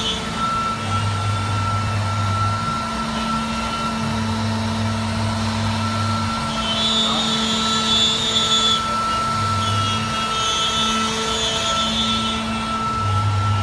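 CNC router cutting a jali pattern in plywood: the spindle runs with a steady high whine. A deeper hum comes and goes every few seconds, and twice in the second half a brighter, hissing cutting noise rises for a couple of seconds.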